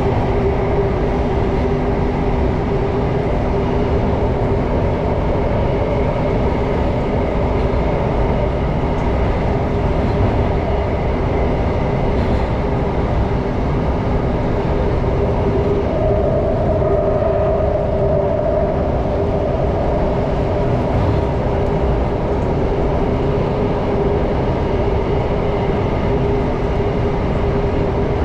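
Singapore North East Line MRT train running at speed through a tunnel, heard inside the carriage: a steady rumble of wheels on rail with a steady motor hum. A higher tone joins for about three seconds past the middle.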